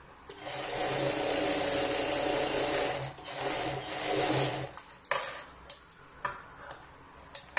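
Sewing machine running in two stretches of stitching, with a short break about three seconds in. It stops near the five-second mark and is followed by a few sharp clicks and taps.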